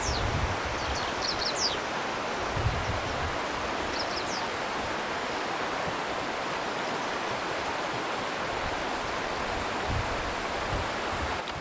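River water rushing steadily, with a few short high bird chirps in the first few seconds and some soft low thumps.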